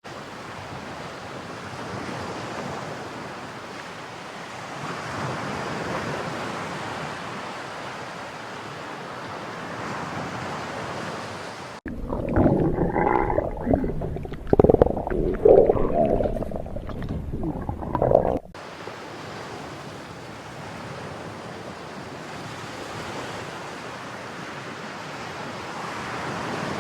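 A stomach growling: irregular gurgling rumbles for about six seconds in the middle, starting and stopping abruptly. The growl sits between long stretches of steady rushing noise, like wind or surf.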